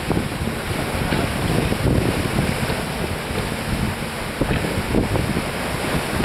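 Wind buffeting the microphone over the rush of sea water along the hull of a J Class yacht sailing fast.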